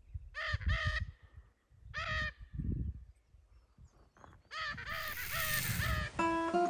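Lear's macaws calling: a pair of calls about half a second in, another at about two seconds, then a quick run of four or five calls towards the end, over a low rumble. Acoustic guitar music begins just before the end.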